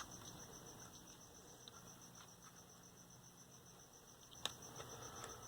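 Near silence with a faint, steady high-pitched pulsing, about nine pulses a second, and one sharp click about four and a half seconds in.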